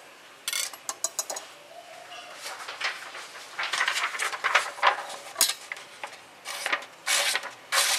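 A blunt kitchen knife drawn again and again across a sheet of paper: a run of short, irregular rustling and scraping strokes, with the paper crumpling and tearing instead of being sliced cleanly, the sign of a dead cutting edge.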